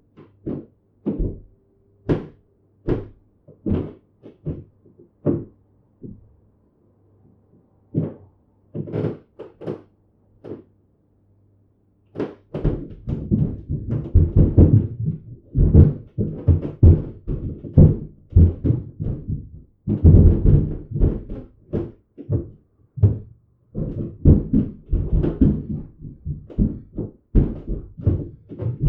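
Heavy footsteps thudding on a floor: spaced, walking-pace thuds at first over a low hum, then about halfway in a fast, dense run of thuds as someone runs.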